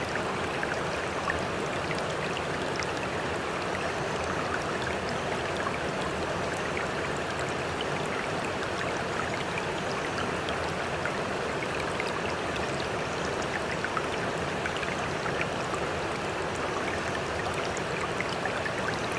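Floodwater rushing steadily, an even unbroken rush with small splashes and drips throughout.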